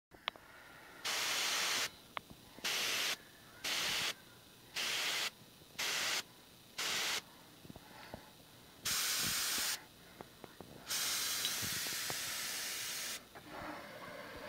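An airbrush spraying paint in about eight bursts of hiss that start and stop sharply as the trigger is worked. The early bursts are short, under a second each, and the last one is held for about two seconds.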